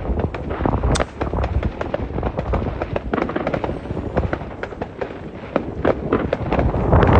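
New Year's Eve fireworks going off thick and fast: a dense run of bangs and crackling, near and far, over a steady low rumble, with one sharp crack about a second in.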